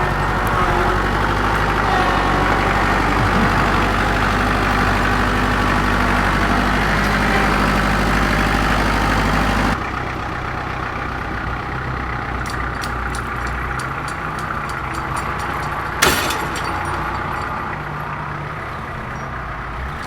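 Vehicle engine running steadily up close, then, after an abrupt cut about ten seconds in, a quieter engine running with scattered rattles and one sharp knock about sixteen seconds in.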